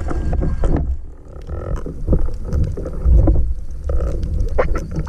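Muffled underwater rumble of water moving over a submerged action camera's housing, with scattered crackles and bubble pops.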